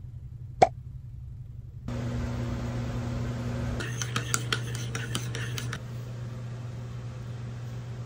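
Metal spoon stirring in a ceramic mug, clinking against its sides about ten times over two seconds, over a steady low hum. A single sharp click comes near the start.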